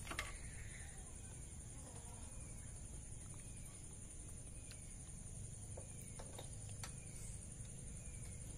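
A bird calling faintly: short falling chirps repeating about once a second over a low steady background rumble.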